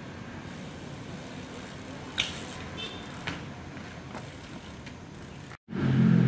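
BMX bike on asphalt: a faint rolling hiss of tyres, a sharp metallic click with a brief ring about two seconds in, and a lighter knock about a second later. Near the end, after a short cut to silence, a much louder low hum comes in.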